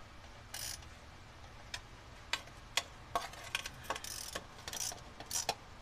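Metal hand tools clicking and clinking against engine parts: a string of irregular sharp clicks, with a few short scrapes mixed in.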